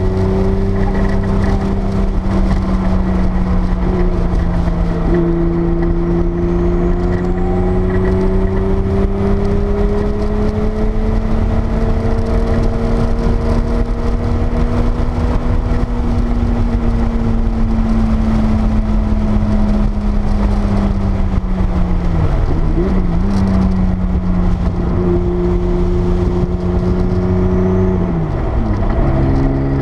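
Porsche 930 Turbo's air-cooled turbocharged flat-six heard from inside the cabin under track driving, its note climbing slowly as the car accelerates and then easing off. Two quick dips and recoveries in engine pitch, about three-quarters of the way through and near the end, come with gear changes, over a steady rumble of road noise.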